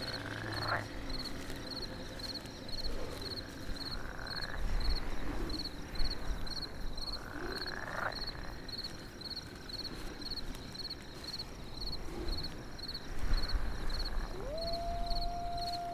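Designed night-forest ambience: an insect chirps steadily about twice a second over a low rumble, with frog-like croaks and a few short rising calls. Near the end a long, high howl begins and holds its pitch.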